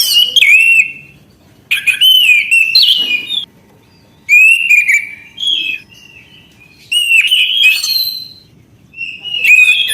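Orange-headed thrush singing loud, varied phrases of slurred whistles mixed with rapid high twittering. The phrases come in about five bursts with short pauses between them.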